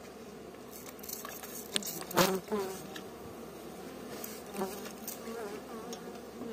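Strandja honeybees buzzing steadily around an open hive, with single bees whining past close by. A few short hisses of a hand trigger spray bottle cut in, the loudest about two seconds in.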